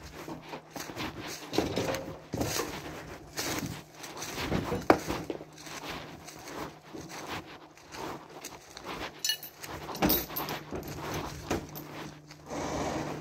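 Irregular knocks, clatter and rustling from scrap metal being handled on a trailer, with a sharp ringing metal clank about five seconds in and another heavy knock near ten seconds.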